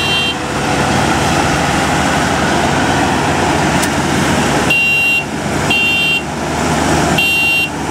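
Diesel engines of a combine harvester and a mired tractor running hard under load as the combine tries to drag the tractor out of deep mud. Three short, high beeps sound in the second half.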